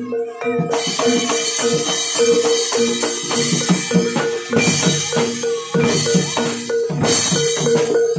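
Barongan gamelan accompaniment: drums beating a fast, dense rhythm over a steady ringing pitched note, with bright cymbal crashes coming in about a second in.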